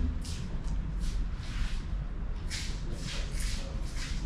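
Wet footsteps: a run of short scuffing and splashing steps on rain-soaked ground, a few a second, over a low rumble of wind on the microphone.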